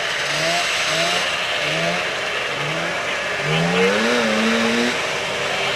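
Snowmobile engine revved in quick short bursts, each rising briefly in pitch about once every two-thirds of a second, then one longer rev that climbs and holds steady for about a second.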